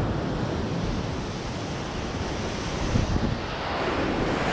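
Ocean surf breaking and washing over the rocks below, with wind buffeting the microphone; the wash swells louder about three seconds in.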